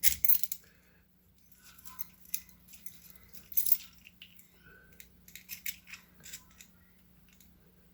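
Light metallic clicks and scrapes of a key going into a door lock cylinder and the lock's metal parts being handled, with the loudest clicks near the start and about three and a half seconds in, and a few faint brief metallic rings.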